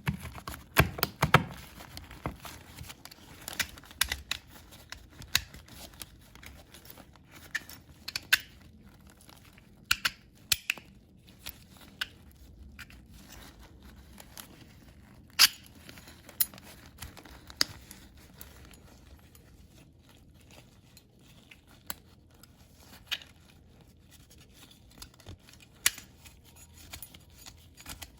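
Irregular sharp clicks and taps with rustling, as small parts of a PECS oil filter and paper wipes are handled during cleaning. The taps come thickest in the first few seconds and grow sparse after the middle.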